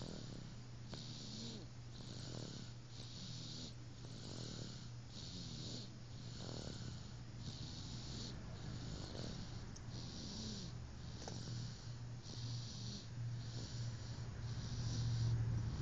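Snoring, with rhythmic breath noise swelling and fading about once a second over a steady low hum.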